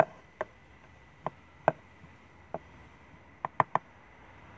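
Small plastic makeup containers being picked up and set down: about eight sharp clicks and knocks, with a quick run of three near the end.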